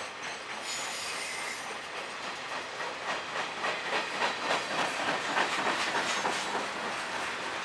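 Freight cars rolling past close by: steel wheels clicking rapidly over rail joints over a steady rumble, the clicks thickest in the second half. A brief high wheel squeal comes about a second in.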